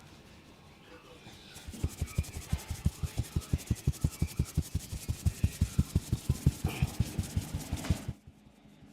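Rapid rhythmic hand strikes of a head massage, about seven thumps a second, starting about a second and a half in and stopping suddenly some six seconds later.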